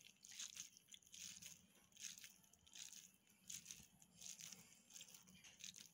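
Faint squishing and crackling of sticky boondi being squeezed by hand into laddu balls, in a series of soft, uneven squeezes.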